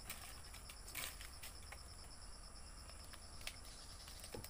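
Steady high-pitched chirring of insects, crickets or similar, with a fine rapid pulse, and a few faint clicks about a second in and near the end.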